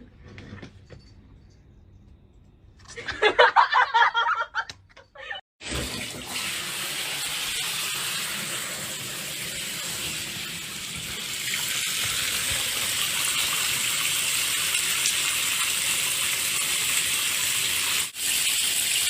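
Steady rush like running water that starts about six seconds in and carries on, preceded near the start by a short, loud pitched sound, a voice or an animal cry.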